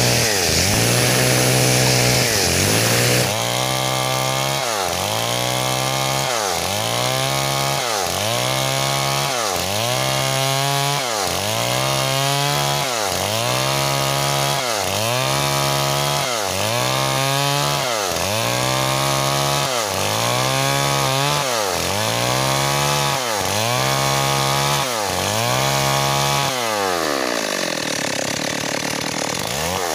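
Stihl MS 381 two-stroke chainsaw ripping lengthwise along a squared log. The engine note is steady at first, then rises and falls about once a second as the saw loads and clears in the cut. Near the end the revs sag for a moment before picking up again.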